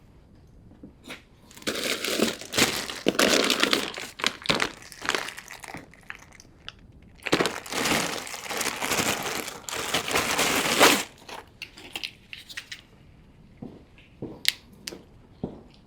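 Crinkling and rustling of plastic being handled, in two long stretches with scattered clicks between and after.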